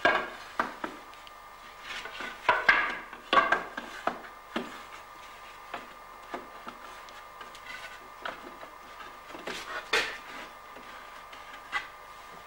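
Wooden barrel staves knocking and clattering against each other and the hoop as a cooper stands them up one by one, setting up the shell of a herring barrel. The knocks come irregularly, in clusters near the start, around three seconds in, and about ten seconds in.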